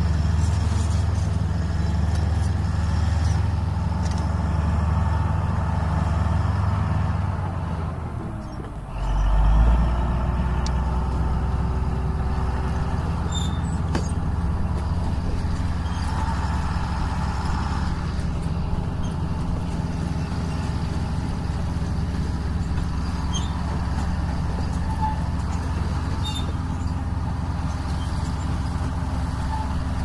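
Bulldozer's diesel engine running steadily in the background as a low rumble, dipping briefly about eight seconds in and then coming straight back.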